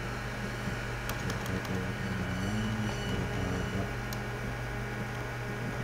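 Steady low background hum with a few faint shifting tones, and a handful of computer keyboard clicks about a second in and once more near four seconds.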